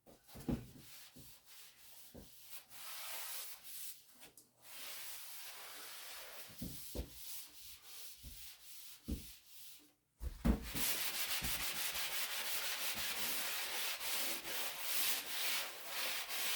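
Damp sponge rubbed over dried drywall joint compound in wet sanding, a hissing scrub with occasional light knocks. About ten seconds in it breaks off briefly and comes back louder and steadier.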